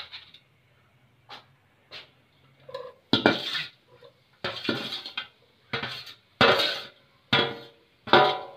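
Steel bowl and a metal utensil scraping and clinking against an aluminium karahi as shredded chicken is tipped in: a few light clicks, then loud scrapes about once a second, some with a short metallic ring.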